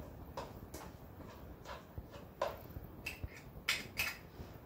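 A few quiet, irregular clicks and taps as small kitchen utensils and spice containers are handled over a frying pan on the stove.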